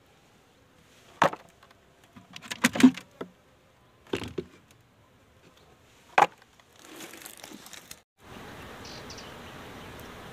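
Wooden beehive frames and boxes knocking and clattering as they are handled: a handful of sharp knocks spread over about six seconds, then a brief rustle. After a sudden break a steady hiss of outdoor background noise sets in.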